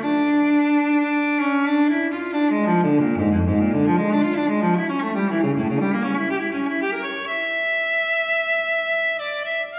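Solo cello music: bowed notes in a slow line, some held for a second or more, with a long sustained note near the end.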